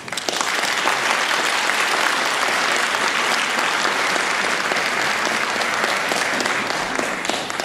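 Audience applauding: steady clapping that starts abruptly and dies away near the end.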